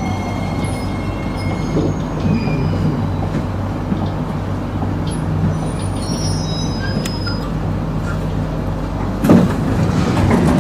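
Singapore MRT train running with a steady low hum and a few faint high squeaks as it slows into a station. The hum dies away as it stops, and about nine seconds in the doors slide open with a sudden loud rush.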